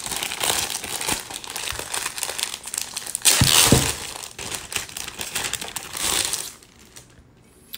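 Clear plastic bag crinkling and rustling as a small round griddle pan is pulled out of it. The rustling is loudest about halfway through and dies away near the end.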